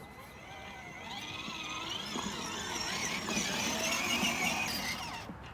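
Squealing of window glass being wet sanded to clear a cloudy build-up: many wavering squeaky pitches at once, growing louder from about a second in and fading near the end.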